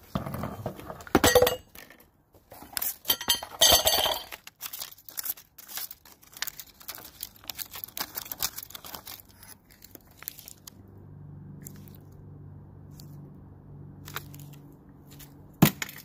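Pipe wrench clanking and scraping against the threaded steel and brass fittings on top of an electric water heater as they are worked loose, with scattered metal clinks. A faint steady low hum sits under the later part, and a single sharp knock comes near the end.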